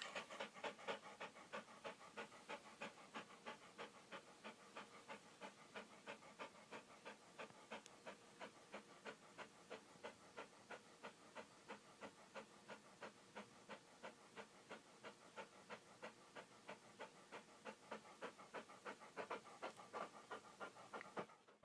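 Dog panting rapidly and steadily, about four quick breaths a second.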